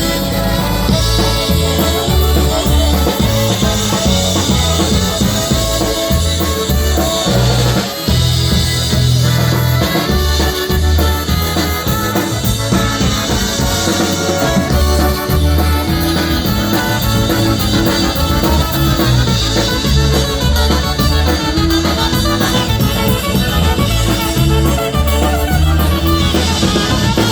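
Live polka band playing an instrumental stretch of a song, with a steady bass and drum beat under the lead instruments and no singing.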